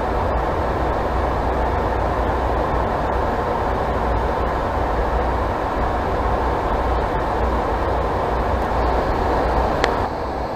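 Steady cockpit noise of a business jet in flight: a continuous rush of airflow over the airframe with engine drone underneath. A short sharp click comes near the end, and the noise then drops slightly in level.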